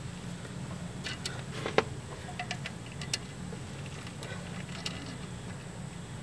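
Light metallic clicks and taps, scattered over several seconds with two sharper ones, as a banjo bolt is handled and tried in the threads of a new brake caliper. A steady low hum runs underneath.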